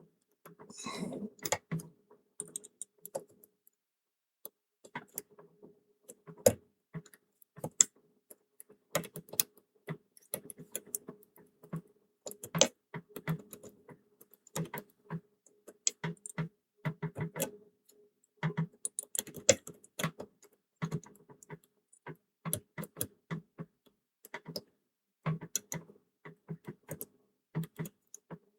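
Lock picks working inside a pipe-key padlock: small irregular metal clicks and taps as a pick and tube tensioner probe the internals, a few a second, some louder than others, with a faint steady hum underneath.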